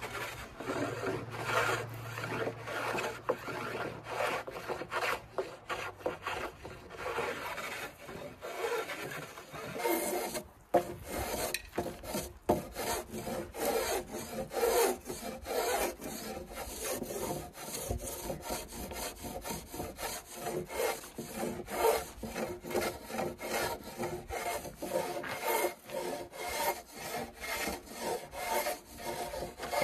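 Hand plane shaving a wooden oar blank: repeated rasping strokes along the board, one after another, as the oar is shaped by hand.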